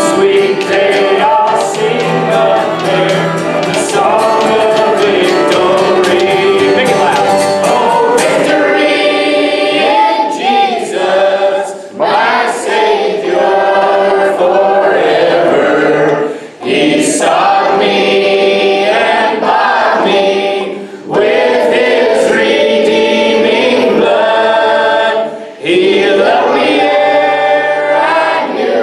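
A church congregation singing a gospel worship song together, led by a worship band. The instrumental accompaniment thins out about eight seconds in, leaving mostly voices, with short breaks between the sung phrases about every four seconds.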